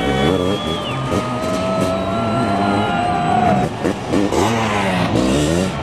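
Sidecar motocross outfits' engines revving, several at once, their pitch rising and falling as the outfits race on the dirt track; one engine climbs steadily in pitch for about two seconds midway.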